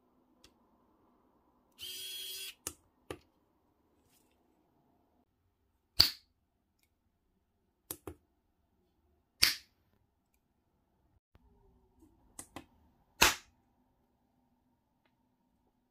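Sharp finger snaps, singly and in pairs a second or a few apart, some much louder than others. They trigger a sound-activated MOSFET switch through its electret microphone, turning the bulb on and off. A brief hiss sounds about two seconds in.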